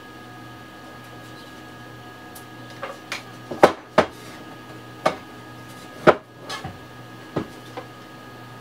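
Sheet-metal case of an Astron SS-30M power supply being handled and fitted back together: a run of sharp metallic clanks and knocks starting about three seconds in, the loudest near four and six seconds in, over a steady faint hum.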